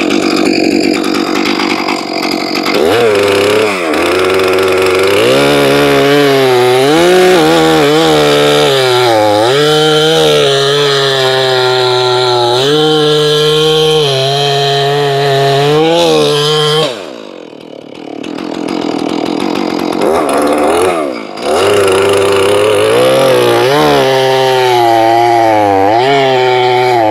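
Stihl MS461, a 76.5 cc two-stroke pro chainsaw with a skip-tooth chain, rip-cutting (noodling) lengthwise along the grain of a fresh sycamore slab. It revs up a few seconds in and then runs at full throttle, its pitch sagging and recovering under load. Near the end it drops off the throttle briefly, twice, before cutting again.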